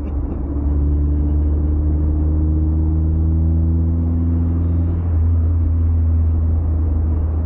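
Mazda MX-5's engine pulling steadily under a low road rumble, its note rising slowly for about five seconds and then stepping down to a lower pitch, as at a gear change.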